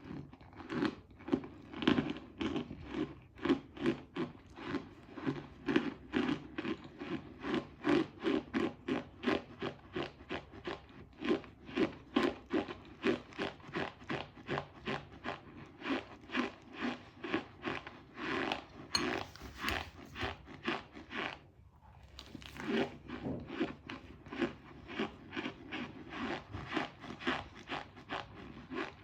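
Close-up chewing of crunchy cornstarch, with a steady run of crisp crunches about two a second and a brief pause about three quarters of the way through.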